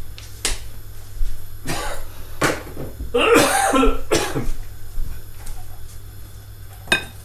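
A person coughing, or clearing their throat, in a burst of just over a second about three seconds in, among a few sharp knocks and clicks.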